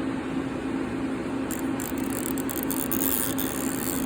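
Steady hum and hiss of a powered-up CNC lathe, with a few faint high ticks about one and a half seconds in and again near the end.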